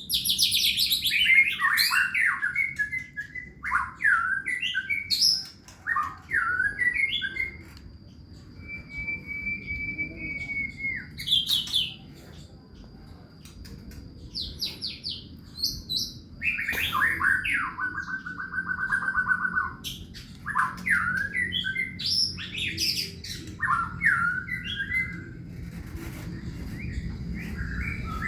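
A songbird singing loud, varied phrases of falling sweeps and fast buzzy trills, broken by short pauses. About ten seconds in it holds a single steady whistled note.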